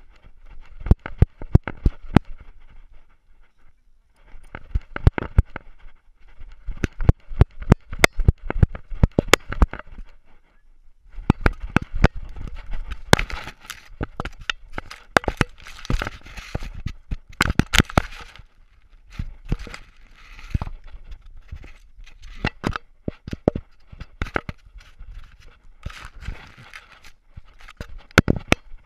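Handling noise from a GoPro camera in its housing on a dog's collar as the dog moves: rapid knocks and clicks with scraping and rubbing, in bursts broken by a few short pauses.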